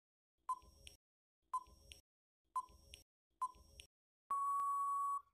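Countdown timer sound effect: four short beeps about a second apart, each followed by a faint tick, then one longer steady beep near the end that stops abruptly as time runs out.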